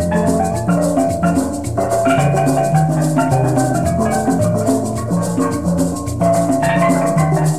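Background music: a melody of short pitched notes over a steady, evenly repeating percussion beat.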